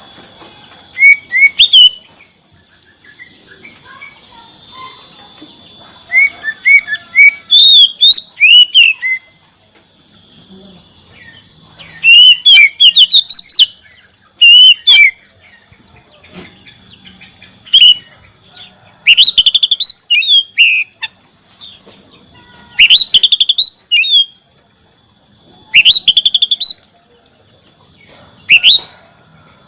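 Oriental magpie-robin (kacer) singing: loud phrases of rapid chirps and sharp gliding whistles, repeated every few seconds with short pauses between, over a faint steady high-pitched hum.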